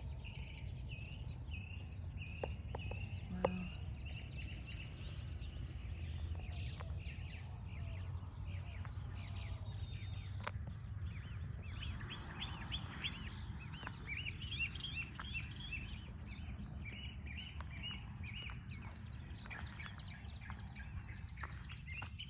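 Small birds chirping in quick repeated short notes, over a steady low rumble.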